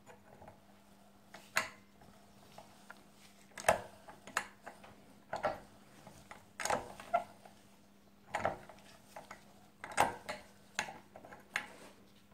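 A differential's crown wheel and pinion being turned forwards and backwards by hand with a spanner on the pinion while the crown wheel is held under load, rolling a tooth contact pattern in marking paint. There are about ten sharp metallic clinks and clunks, roughly one a second, from the gear teeth and the tool.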